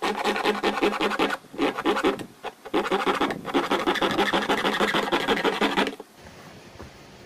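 A small saw blade held bare in the hand rasps back and forth through the wall of a blue plastic water jug in quick strokes. It breaks off briefly twice in the first three seconds and stops about six seconds in.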